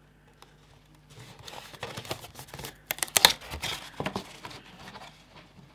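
Hands handling a small paper box: fingers pressing and rubbing its double-sided-taped sides, with quick paper rustles, clicks and taps. It starts about a second in, is busiest around the middle and dies away near the end.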